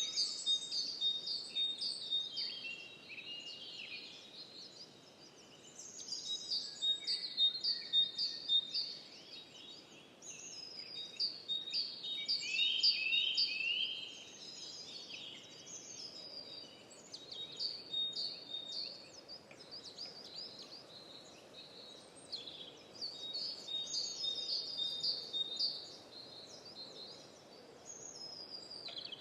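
Songbirds singing in bouts of quick, high chirps and trills a few seconds long, repeating every several seconds over a soft steady background hiss.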